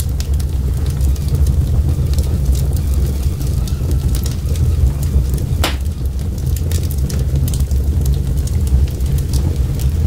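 Wood fire of stacked logs burning: a steady low rumble of flame with frequent crackles and pops, one louder pop a little past halfway.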